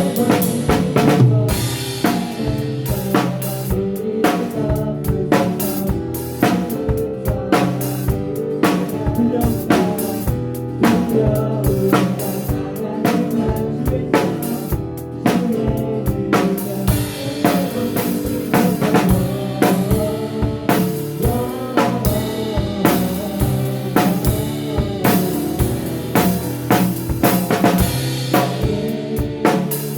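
A live band playing an instrumental passage, with the drum kit to the fore: busy snare and bass-drum strokes and rimshots over sustained guitar and bass.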